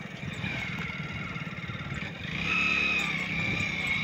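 Motorcycle engine running, getting louder about halfway through, with a high whine over the low drone.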